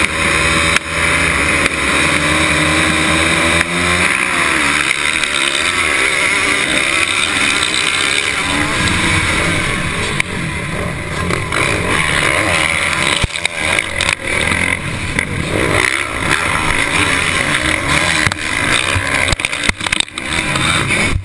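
Pack of motocross bikes racing off the start, heard from a rider's onboard camera: engines held at steady high revs for the first few seconds, then rising and falling in pitch as the bikes launch, accelerate and shift. Sharp knocks come in near the end.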